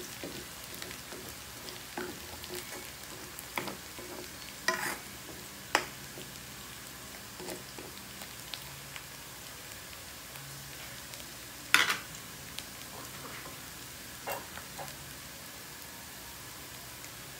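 Chopped garlic and onion sizzling in oil in a wok, stirred with a spatula that scrapes and knocks against the pan now and then. The sharpest knock comes a little past the middle.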